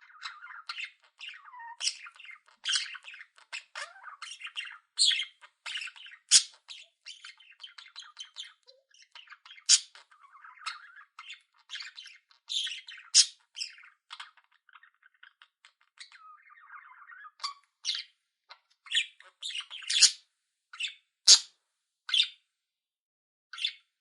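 Budgerigar warbling: a fast, continuous chatter of trills and clicks broken by sharp high chirps. Over the last several seconds it thins out to separate sharp chirps with short gaps between them.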